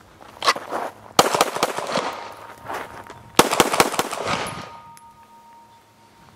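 Semi-automatic pistol firing two rapid strings of shots, the first about a second in and the second a little past halfway, each shot with a short echo after it.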